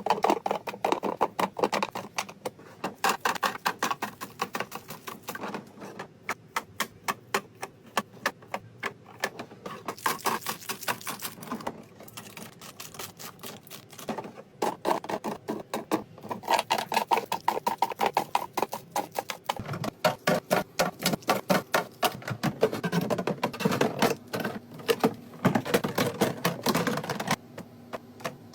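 Rapid clicking, tapping and crinkling of groceries, packaging and plastic containers being handled and set into a fridge, in quick irregular runs with a few brief pauses.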